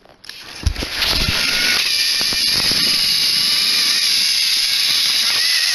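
Battery-powered toy trains' motors switched on with a few clicks, then running with a steady high whir as the engines drive along the plastic track.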